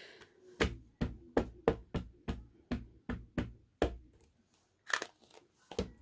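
Rubber stamp being tapped repeatedly onto an ink pad to ink it: quick, sharp knocks about three a second, then a short pause and two more taps near the end.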